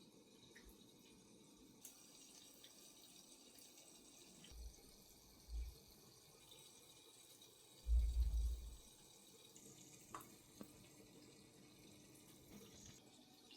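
Faint trickling and dripping water, with a few deep thumps, the longest and loudest about eight seconds in, and a couple of small clicks near the end.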